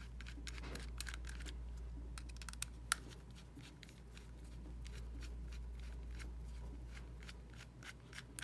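Small screwdriver backing screws out of the back of an SRV-8 ROV thruster's plastic housing: a scatter of light clicks and ticks from the driver and the handled plastic, with one sharper click about three seconds in, over a low steady hum.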